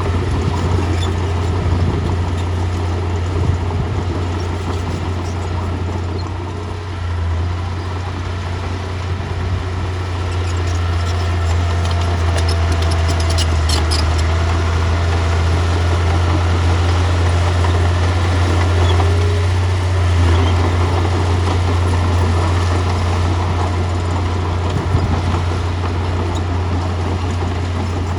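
Bulldozer's diesel engine running steadily, a deep continuous drone, with a few short clicks about halfway through.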